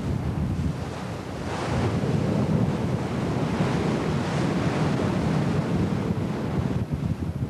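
Sea water rushing and splashing along a moving fishing boat's hull, with wind buffeting the microphone. The hiss of the wash swells about one and a half seconds in and again around four seconds.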